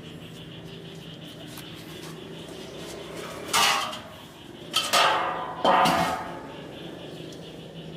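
Three short, harsh scraping clatters a little over a second apart near the middle, over a steady low hum.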